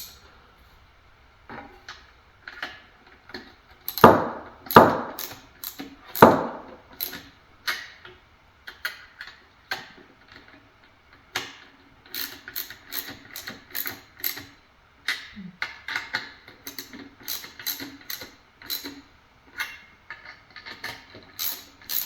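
Hand ratchet clicking in short repeated strokes as it snugs 10 mm nuts down onto mounting studs, with a few louder clacks about four to six seconds in.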